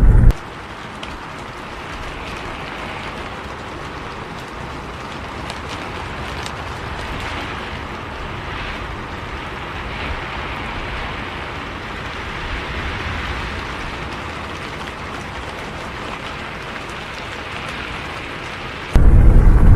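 Steady rain, an even hiss with faint scattered drop ticks. A loud low vehicle rumble cuts out just after the start and comes back near the end.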